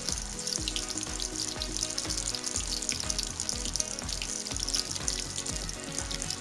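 Breaded chicken drumsticks deep-frying in hot oil in a black iron wok: a dense, steady sizzle and crackle of bubbling oil. Background music with a steady beat plays underneath.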